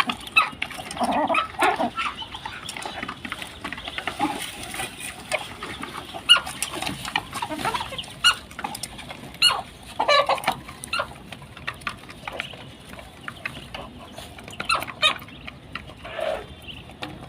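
Domestic chickens clucking, with many short, scattered calls from the poultry flock.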